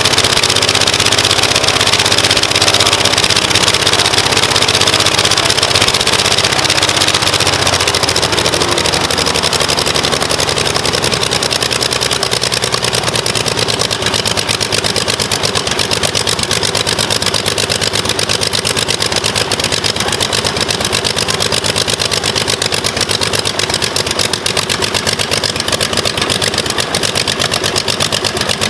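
Rebuilt Lycoming O-540 six-cylinder, air-cooled, horizontally opposed aircraft engine running on a test stand. Its pitch drops about eight seconds in as it slows to a lower speed, where the separate firing pulses can be heard. The crew takes its running for number five cylinder being dead (not firing).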